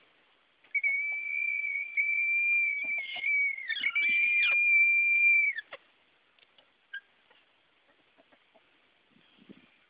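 Silver Sebright bantam roosters giving their frightened call: a long, steady, high-pitched scream like a whistle, held for about five seconds. A second bird's voice briefly joins it, dipping and rising, before the call stops about halfway through.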